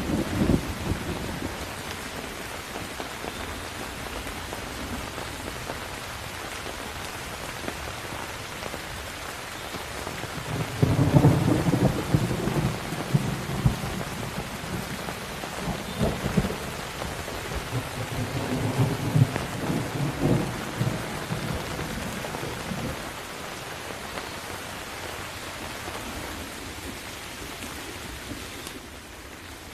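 Steady rain with rolling thunder: a loud rumble breaks about eleven seconds in, then further rumbling comes and goes before dying away, leaving the rain alone near the end.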